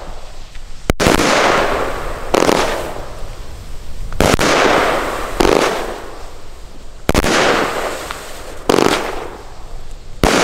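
30 mm compound firework cake (VOLT Noise Kick) firing shot after shot, seven in all, about one every one and a half seconds. Each shot is a sudden bang that fades away over about a second.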